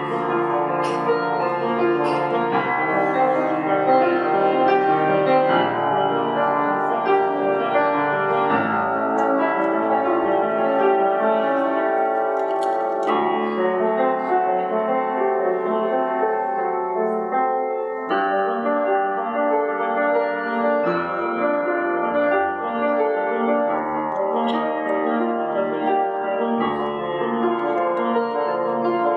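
Solo piano played in a steady, continuous stream of notes.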